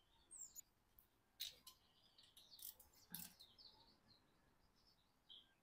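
Near silence: faint bird chirps in the background and a few faint, isolated clicks.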